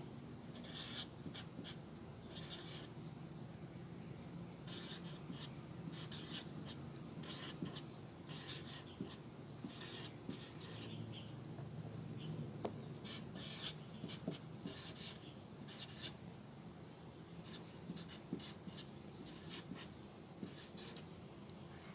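Felt-tip marker writing on a sheet of paper: faint short hissing strokes of the tip across the paper, coming in clusters with brief pauses between letters and numbers.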